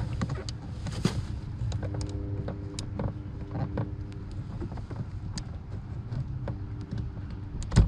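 Small plastic clicks and knocks as the wiring connector on a Mercedes W126 rear power-window switch is worked loose by hand, ending in one loud sharp click near the end as it comes free. A steady low hum runs underneath.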